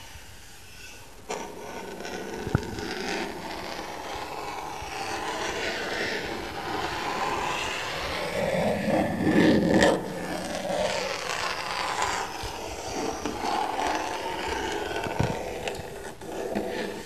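A hand rubbing and scraping across a wall surface, picked up close by a shotgun microphone. It starts about a second in and is loudest around the middle, with a few sharp clicks.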